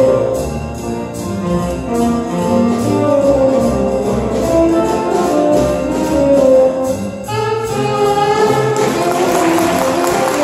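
Small jazz combo of saxophones and upright double bass playing live, the horns carrying a melody over a walking bass, with a steady beat of light percussive ticks.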